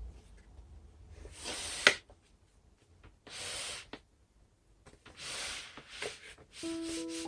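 Packaging being handled in three short rustling bursts, with a sharp click about two seconds in. Soft piano music comes in near the end.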